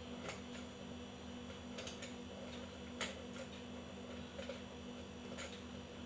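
Faint scattered clicks and taps of screws being fitted into the holes of a ceiling fan's cover, the sharpest about three seconds in, over a steady low hum.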